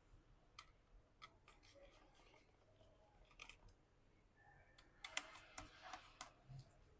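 Faint, scattered clicks of a small screwdriver and tiny screws being worked out of a laptop's battery mounting, with a busier run of clicks about five seconds in.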